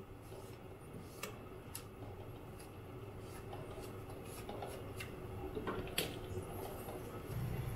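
A sheet of dried kombu kelp being wiped with a paper towel: faint rustling and rubbing, with scattered small crinkles and ticks of the stiff kelp and paper.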